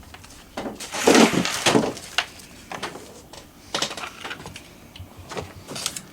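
Irregular rustling, clicks and light clatter as packaging and small phone accessories are handled, with a louder rustle about a second in.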